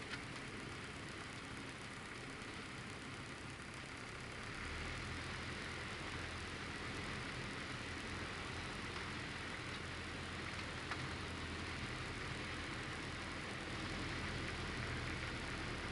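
Light aircraft's piston engine and propeller running steadily at low power during taxi, heard from inside the cockpit. The engine note gets a little louder about four and a half seconds in.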